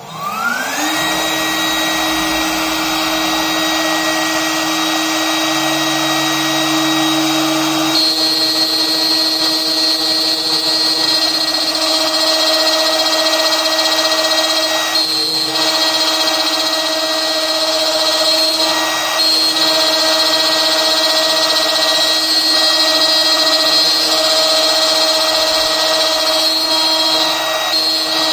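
A.M.MA. Extrema Q10 CNC router's spindle spinning up with a rising whine over about a second, then holding a steady high whine. From about eight seconds in, the end mill cuts a pocket into a PVC plate in passes, adding a rough, higher cutting noise over the whine.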